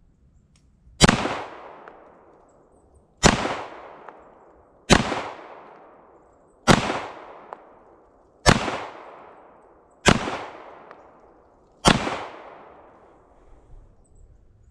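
Seven slow, deliberately paced shots from a CZ Shadow 2 9mm pistol, one about every one and a half to two seconds. Each shot rings out and dies away over about a second.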